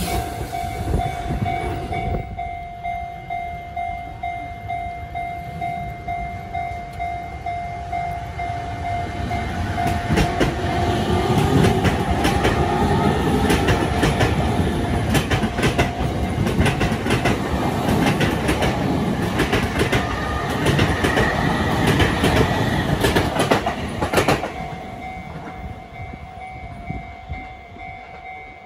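A JR E233-series electric train finishes passing in the first two seconds. A level-crossing alarm rings with a steady pulsing tone. From about ten seconds in, a navy-blue Sotetsu electric train passes close by, its wheels clacking over the rail joints under a curving motor whine; it is gone by about twenty-four seconds, and the crossing alarm rings on.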